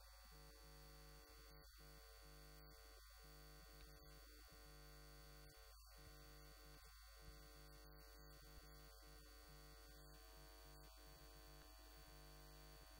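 Near silence: a faint, steady electrical hum made of several constant tones, with no speech to be heard.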